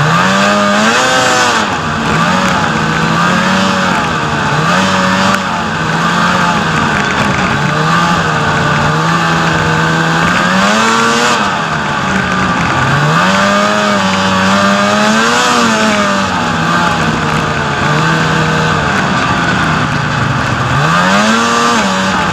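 Snowmobile engine running on a trail ride, its pitch rising and falling every few seconds as the throttle is opened and eased off, over a steady hiss.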